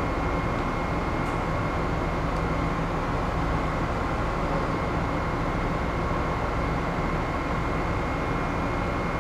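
Steady drone of a moored ship's onboard machinery and ventilation running, with a thin constant high whine above a low hum.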